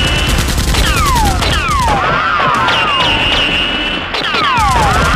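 Dubbed-in automatic gunfire sound effect: rapid, evenly spaced shots, with falling whistle-like sweeps and higher tones in a pattern that repeats about every two seconds.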